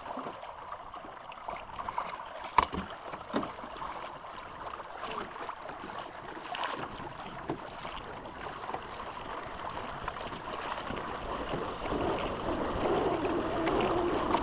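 Water rushing and lapping against the hull of a small sailing kayak moving through choppy water, with wind on the microphone. A few sharp knocks come about two to three seconds in, and the water noise grows louder near the end.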